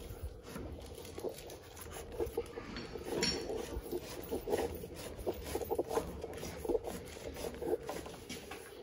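Non-metallic electrical cable being pulled through drilled holes in wooden wall studs: irregular rubbing, rustling and small clicks as the wire slides and catches.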